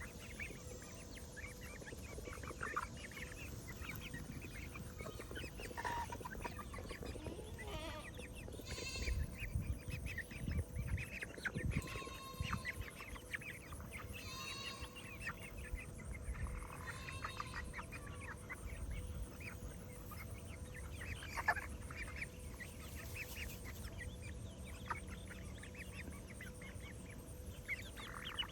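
Chickens clucking and giving short calls at intervals while foraging, with a few low thumps about ten seconds in.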